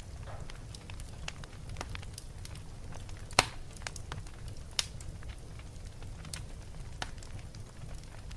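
Wood fire burning in a fireplace: a steady low rumble with scattered crackles and snaps, and two sharper pops a little over a second apart near the middle.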